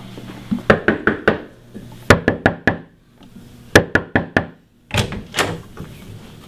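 Knuckles knocking on a door in several quick rounds of four or five raps each, about a second and a half apart.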